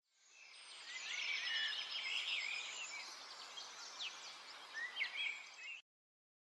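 Birds chirping over a steady outdoor hiss; it fades in at the start and cuts off suddenly near the end.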